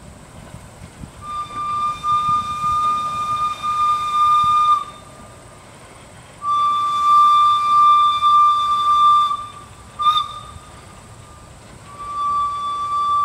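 Steam whistle of the 2-2-2 replica locomotive John Molson blowing one steady note: a long blast, a second long blast, a brief toot, then a third blast beginning near the end.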